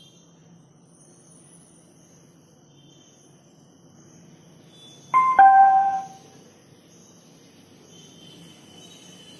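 Bluetooth amplifier module's pairing chime sounding through the home-built speaker: two short electronic tones about five seconds in, a higher note and then a lower, longer one. It signals that the phone has just connected.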